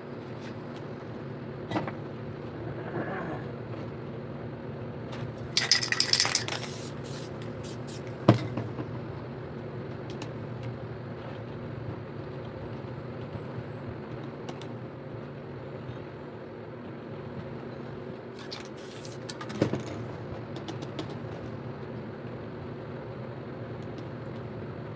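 Aerosol spray paint can hissing in two short bursts, about five seconds in and again near nineteen seconds, with a few sharp clicks between, over a steady low hum.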